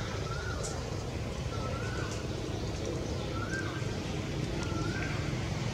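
A bird calling over and over, a short rising whistled note about every second and a half, over a low steady rumble.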